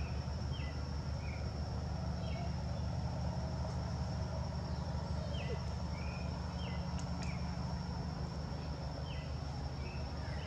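Outdoor ambience: small birds give short chirps every second or so over a steady, high-pitched insect buzz, with a low steady hum underneath.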